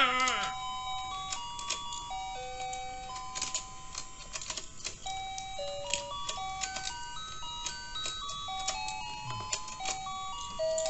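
Battery-powered toy fishing game playing its tinny electronic tune, a simple melody of single beeping notes, while the rotating pond runs. Scattered light plastic clicks sound through it.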